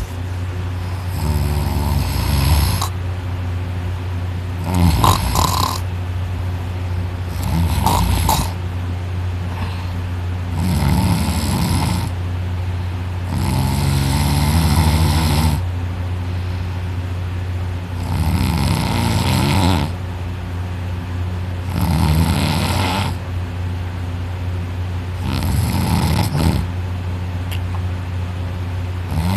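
A woman snoring very loudly and heavily while passed out drunk on her back: deep, rattling breaths roughly every three seconds, some long and drawn out, others short and sharp. Her soft palate and uvula are vibrating hard. A steady low hum runs underneath.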